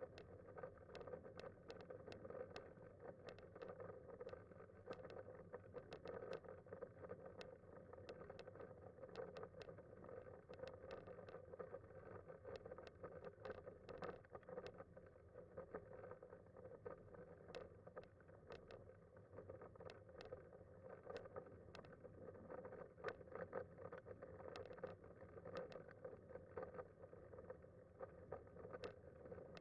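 Faint steady rolling noise of a Kuschall K-Series manual wheelchair with a FreeWheel front wheel running over asphalt, with scattered light clicks and rattles.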